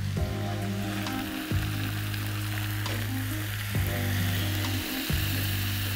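Elephant foot yam pieces in a yogurt and spice masala sizzling steadily in mustard oil in a kadhai, with a splash of water just added to the hot pan.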